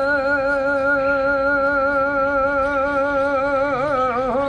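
An elderly man singing a Punjabi Sufi devotional song, holding one long note with a steady vibrato that wavers and dips near the end.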